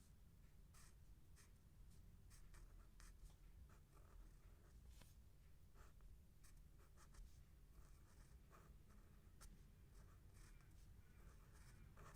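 Faint scratching of a pen on paper as Thai letters are written out by hand, in many short, uneven strokes.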